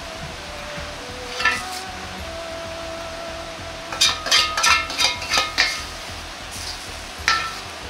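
Metal wok ladle clinking as fried food is served onto a plate: a single clink about 1.5 s in, a quick run of about six sharp clinks around the middle, and one more near the end.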